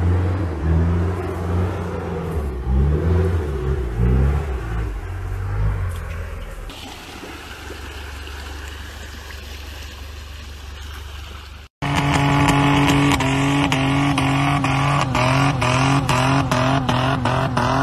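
A 4x4 truck's engine working through mud, its low note wavering up and down, then fading to a quieter steady rumble. After a brief cut to silence about twelve seconds in, a lifted pickup's engine runs louder and steadier.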